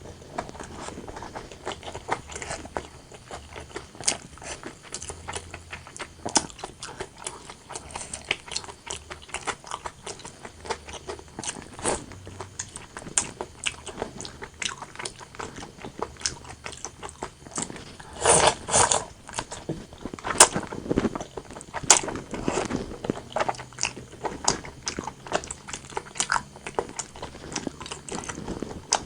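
Close-miked chewing and mouth sounds of someone eating braised pork belly and white rice, a steady run of small clicks, with a louder burst of chewing about two-thirds of the way through.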